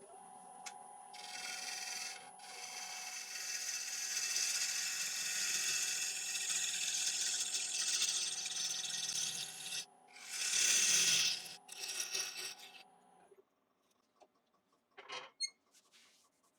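Wood lathe running with a steady whine while a 3/8-inch bowl gouge cuts the outside of a spinning ash bowl blank, a loud hissing cut with a short break about ten seconds in. The cutting and the lathe's hum stop at about thirteen seconds, followed by a couple of faint knocks.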